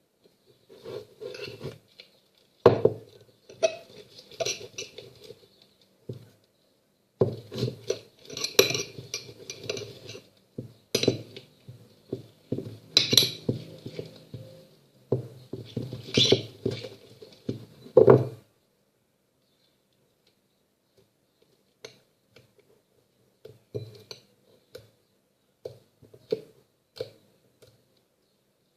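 A spoon and bowl clattering and clinking with irregular knocks and scraping as the slime is worked and gathered up. After about 18 s this stops, and only a few quieter taps follow.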